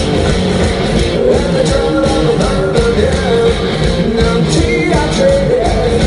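Rock music: a band with guitar and drums, and a voice singing over it.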